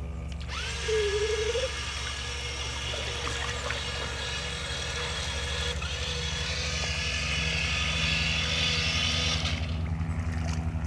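Amphibious remote-control toy monster truck driving through pool water: its electric motors whine and its wheels churn the water, and the sound stops suddenly near the end. A steady low hum runs underneath.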